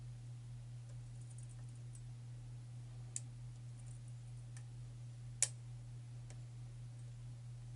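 Lock pick working the pins inside a challenge lock's keyway: a few faint metallic clicks, the loudest about five seconds in, over a steady low hum.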